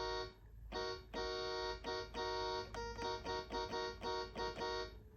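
Electronic keyboard playing an E-flat, F-sharp, A-sharp chord to imitate a Nathan K3H train horn. The chord is pressed again and again, the first few presses held about half a second or more and the later ones short and quick.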